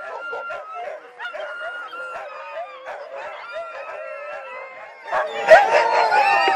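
A pack of huskies on a gangline howling, yipping and barking all at once, many voices overlapping and growing clearly louder about five seconds in. It is the excited clamour of sled dogs being readied for a run.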